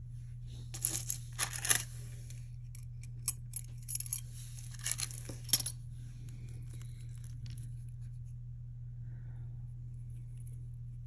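Metal jewelry pieces clinking and rattling against each other as they are picked through, in several short clusters over the first half or so, then quiet. A steady low hum sits underneath throughout.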